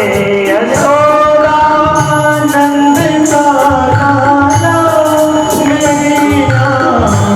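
A devotional Hindi bhajan sung with instrumental accompaniment, long held notes over a steady percussion beat.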